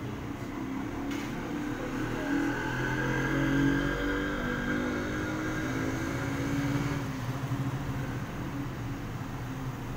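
Motorcycle and motorcycle-sidecar tricycle engines passing on the street, loudest about four seconds in, with another engine rising near the end.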